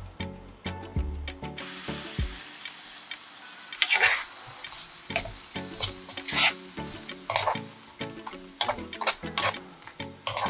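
Button mushrooms, garlic and parsley sizzling in butter in a nonstick frying pan, stirred with a spatula in several scraping strokes. The sizzling starts about a second and a half in, with soft background music underneath.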